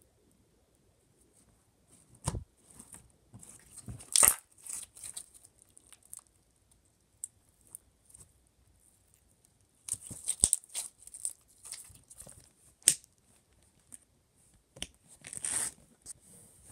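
Clear slime being stretched and squished by hand: irregular sticky crackles and a few sharp pops, coming in bursts with quiet stretches between.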